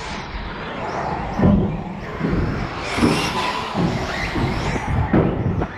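Onboard sound of a radio-controlled car driving on a race track: a steady rattling and motor noise, broken by several irregular heavy knocks as the car bumps along.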